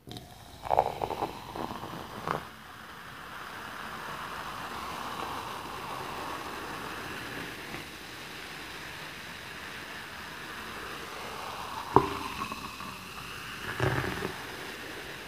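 A fizzy drink poured into a glass mug, splashing at first and then a steady fizzing hiss as it foams up. There are a few sharp taps in the first two seconds, and two more about twelve and fourteen seconds in.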